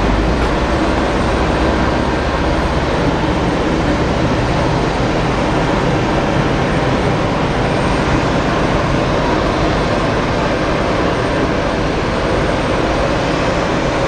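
Boeing 787-8 airliner's jet engines running, a steady, even rush of noise with a low rumble underneath.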